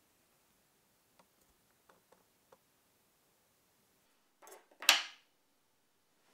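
Faint scattered ticks and clicks of hands handling thread and materials at a fly-tying vise. About four and a half seconds in comes a brief hissy rustle, the loudest sound, lasting under a second.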